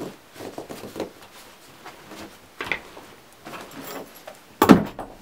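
Rustling and small clicks as the leather straps and buckles of a canvas backpack are handled, then a single loud thump about four and a half seconds in as the pack is set down on a wooden plank floor.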